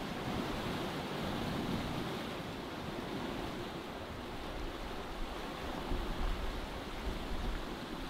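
Sea water rushing and washing along the hull of a sailboat under sail, a steady wash of noise. Wind buffets the microphone with low rumbling gusts in the second half.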